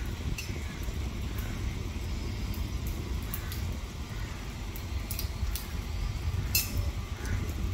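Steady low outdoor rumble of distant city noise and air on the microphone, with a few faint sharp clicks.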